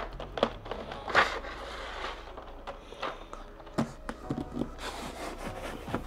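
Cardboard packaging being handled: boxes slid and set down, with soft rubbing and a scatter of light taps and knocks.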